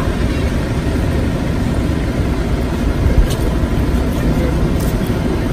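Wind buffeting the microphone: a steady, irregular low rumble.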